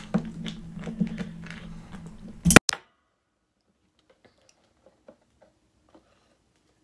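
Dungeness crab shell being pried and cracked by hand: a run of small clicks and cracks, then one loud crack about two and a half seconds in. After that only a few faint clicks remain.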